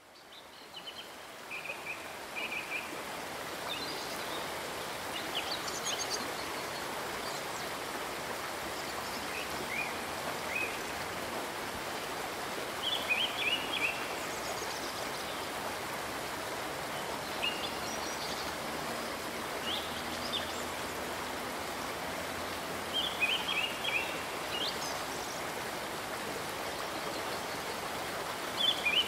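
Steady rush of flowing river water, with birds chirping in short bursts every few seconds. It fades in over the first second or two.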